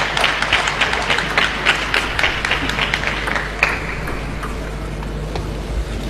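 Spectators clapping after a point is won, the applause dying away about four seconds in, leaving the steady hum of the hall.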